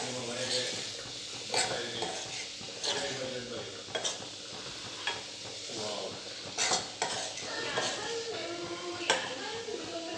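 Spiced potato pieces being stir-fried in a small steel kadai: a steady sizzle of frying in oil, with the utensil scraping against the pan every second or so as the potatoes are stirred and sautéed.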